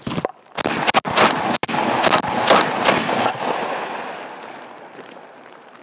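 Panzer Arms EG200 semi-automatic shotgun fired rapidly with double-aught buckshot: a string of about eight shots roughly every half second over three seconds, the last echo fading over the following two seconds.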